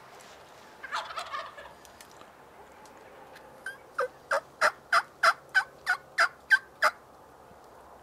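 A wild turkey gobbling about a second in: a short, rattling burst. About two seconds later comes a run of about ten sharp, evenly spaced yelping notes, roughly three a second.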